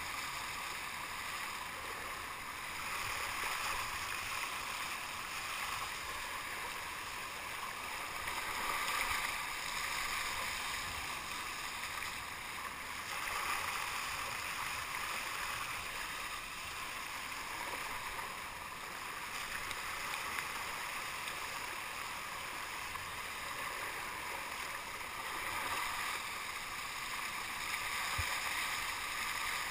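Water rushing and splashing along a sea kayak's hull as it is paddled at speed, swelling and easing every few seconds.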